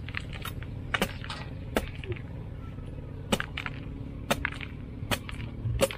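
A large bolo knife chopping into the thick, knobbly rind of a whole jackfruit. It makes a run of sharp chops, about one a second.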